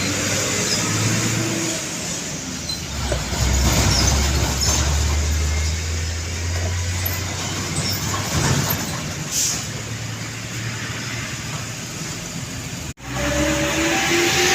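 Heavy road traffic: a large diesel vehicle's engine rumbles past with tyre and road noise, loudest a few seconds in. Near the end, after an abrupt cut, a musical multi-tone horn of the Indonesian 'telolet' kind starts playing stepped notes.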